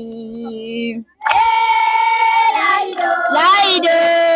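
A voice singing long held notes: a lower note for about a second, a short break, then a loud high note that wavers and slides up near the end.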